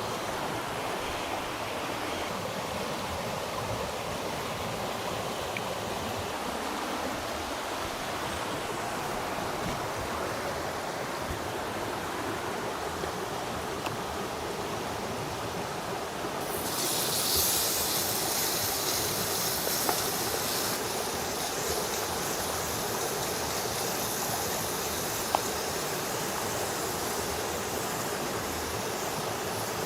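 Steady rushing of running water, with a high hiss joining suddenly a little past halfway and carrying on.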